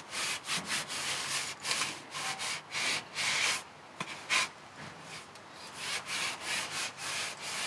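A cleaning wipe rubbed up and down a carbon fishing pole section, a run of short scrubbing strokes with a quieter lull about halfway through.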